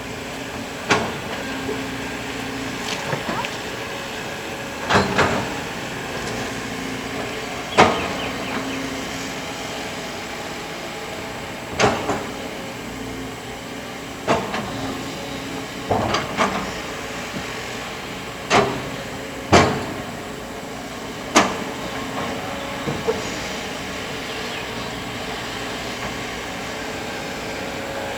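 Kobelco hydraulic excavator's diesel engine running steadily while it digs sand, with about ten sharp knocks and clanks at uneven intervals of a few seconds.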